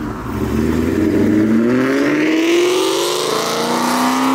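Whipple-supercharged 4.6-litre V8 of a 2003–04 Mustang SVT Cobra accelerating away without being pushed hard. The engine note rises steadily for the first few seconds, then levels off.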